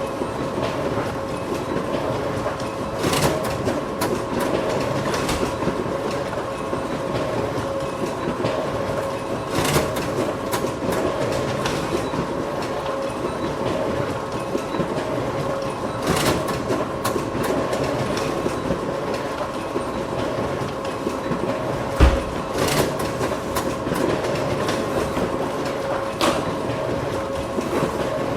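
Photocopier running continuously, a steady mechanical whir with a constant hum and a sharp click about every six to seven seconds, plus one low thump about three quarters of the way through.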